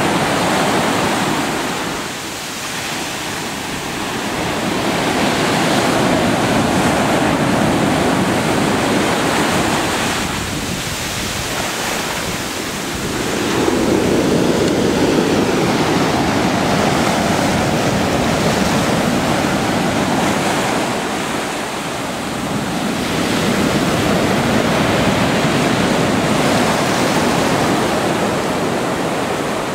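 Pacific Ocean surf breaking and washing ashore: a continuous rush of water that swells and eases in slow surges, each wave lasting several seconds.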